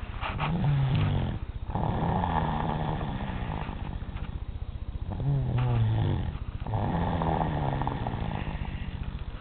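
A three-year-old child snoring: four long snoring breaths, each a low, fluttering drone with short pauses between them.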